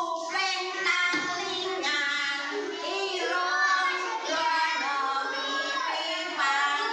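A class of children singing a song together in unison.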